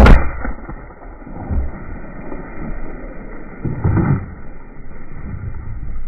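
A single 12-gauge shotgun blast from a Kel-Tec KSG firing a 1.75-inch mini buckshot shell, at the very start. It is followed by muffled low rumbling noise with a couple of dull thumps.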